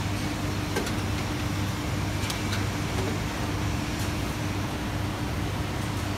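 Semi-automatic strapping machine running with a steady hum, with a few short clicks as plastic straps are pulled tight around a stack of cardboard sheets.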